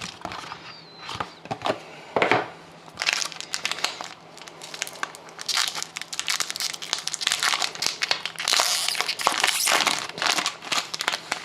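Plastic wrapping on sealed trading card packaging crinkling and tearing as it is opened by hand, with irregular crackles throughout.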